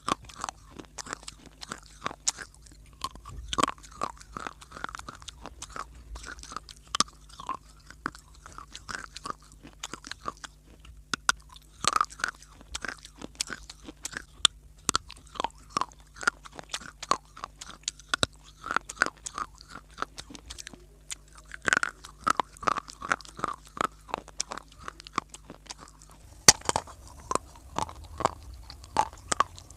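Close-miked crunching and chewing of baked clay (mitti) chunks, with many sharp crackles and bites in quick succession.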